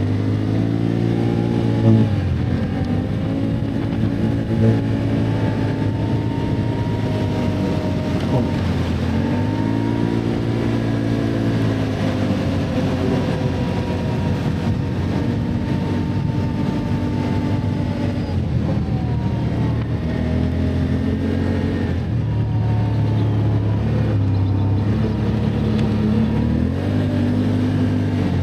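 Can-Am ATV engine running under way, its revs rising and falling again and again as the throttle is worked. A couple of short knocks sound in the first five seconds.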